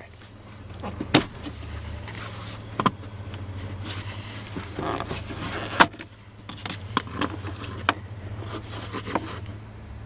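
Plastic dash trim panel above the steering column being pulled free by a gloved hand: a handful of sharp clicks and snaps as its snap-in clips let go, the loudest about six seconds in, with plastic rubbing and handling noise in between, over a faint steady low hum.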